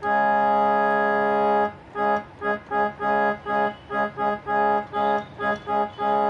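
Small electronic keyboard with an organ-like voice sounding Sa and Pa (tonic and fifth) together as a drone. The chord is held for nearly two seconds, then played as short repeated stabs, about three a second, in a garba-style rhythm.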